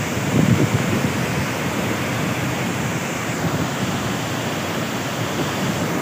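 Muddy floodwater rushing and churning over rocks in a waterfall cascade: a loud, steady wash of water noise.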